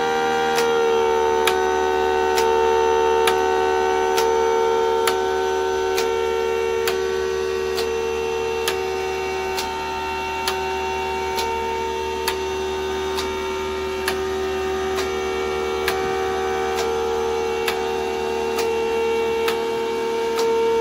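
Mini 3D-printed Federal Signal Thunderbolt 1003 siren sounding a steady tone as its horn rotates. The pitch drops slightly about half a second in, and a light click repeats a little under once a second.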